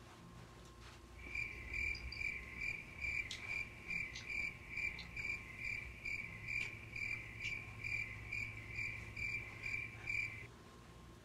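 A high electronic beep pulsing evenly, about three times a second, starting about a second in and stopping near the end.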